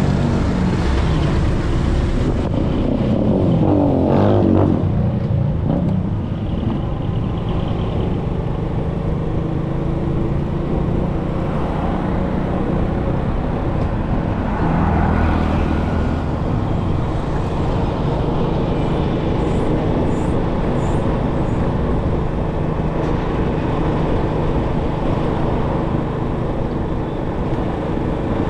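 Vehicle engine running steadily amid city road traffic, its pitch sweeping up and down about four seconds in.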